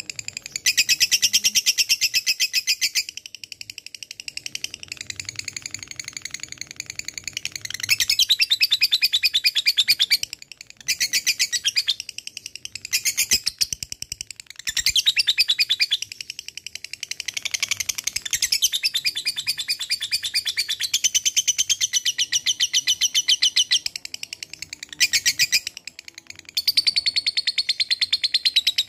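Lovebird ngekek: long bouts of very rapid, sharp chattering notes strung together into a fast trill. Each bout runs from about one to several seconds, with short pauses between them.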